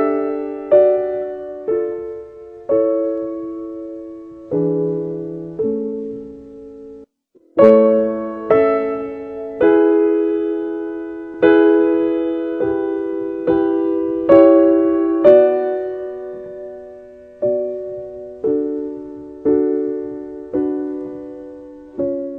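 Slow, gentle solo piano music: soft chords struck about once a second, each ringing and dying away, with a brief pause about seven seconds in.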